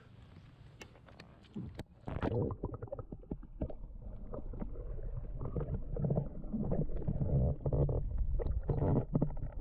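Water sloshing and gurgling heard through a submerged camera microphone, a muffled, rumbling churn with irregular knocks, as a northern pike is held in the water for release. Before this, for about two seconds, there is only faint hiss and a few clicks, then the camera goes under and the sound turns loud.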